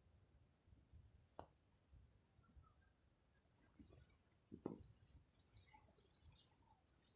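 Near silence: faint room tone with a cricket chirping quietly in short high pulses, about two a second, and a couple of faint soft knocks.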